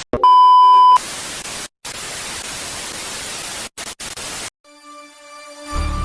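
Television tuning in: a loud steady beep tone for about a second, then static hiss that cuts out briefly several times. Music fades in near the end.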